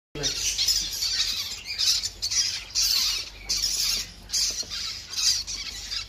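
Forpus parrotlet chicks giving short, harsh, raspy squawks, repeated about two times a second.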